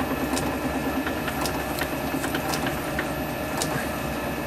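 Steady mechanical hum of workshop machinery, with scattered light clicks and taps as a small steel part is worked loose by hand from the lathe chuck.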